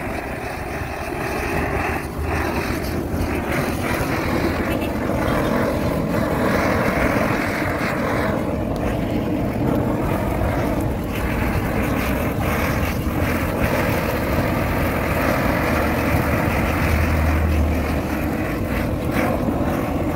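Gas torch burning with a steady, continuous rushing noise as its flame singes the leftover feathers off a plucked duck.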